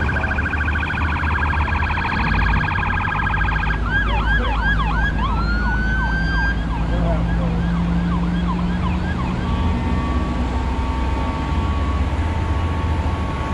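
Electronic emergency-vehicle siren cycling its tones: a rapid warble, switching about four seconds in to a fast yelp of about three sweeps a second with one long rising wail. The siren gives way to steady tones after about nine seconds. A low steady rumble runs underneath.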